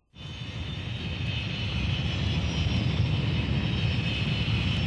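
Jet aircraft engines running, a steady rumble with a high whine that swells up over the first second or so and then holds.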